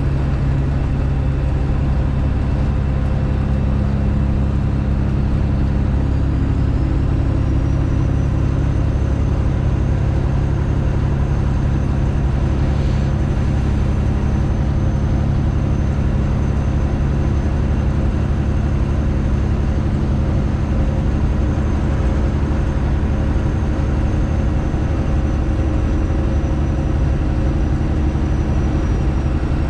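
Straight-piped Detroit Diesel engine of a Freightliner Classic XL truck running steadily under way, a constant loud low drone. Its pitch shifts slightly about a fifth of the way in, when a faint high whine rises and then holds.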